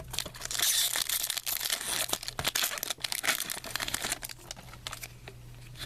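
Trading card pack wrapper crinkling and tearing as a pack is opened, with rustling and small clicks, loudest in the first second and a half.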